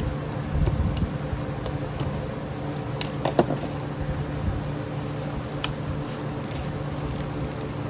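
Steady hum of a shop fan with a few light clicks and taps of small carburetor parts being handled during disassembly, the sharpest about three and a half seconds in.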